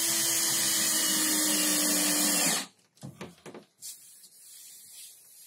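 Cordless drill running steadily into a wooden batten for about two and a half seconds, its pitch dipping slightly just before it stops. A short, quieter hiss and handling sounds follow.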